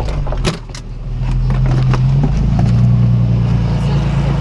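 Car engine running under load, its pitch stepping up about two seconds in, with several sharp knocks and clatters in the first second as the car bumps over rough ground.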